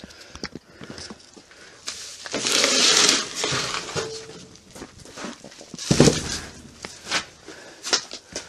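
Handling noise close to the camera's microphone: rubbing and rustling with scattered clicks and knocks, a loud rush of rubbing about two and a half seconds in and a heavy knock about six seconds in, as the camera is carried and moved about.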